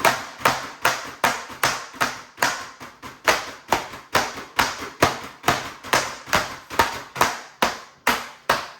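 A baking tray of freshly piped macaron shells being banged down again and again, about two to three sharp knocks a second in a steady rhythm. This is done to knock the air bubbles out of the batter.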